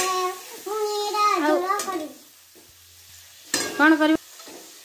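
A toddler talking in a high voice: a stretch of speech over the first two seconds, a pause, then a short burst more near the end.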